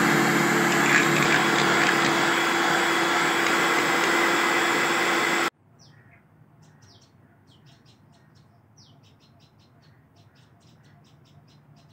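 Electric hand mixer running steadily, its beaters whipping a Milo dalgona mixture in a steel bowl. About five and a half seconds in it cuts off abruptly, leaving faint small birds chirping in quick repeated notes.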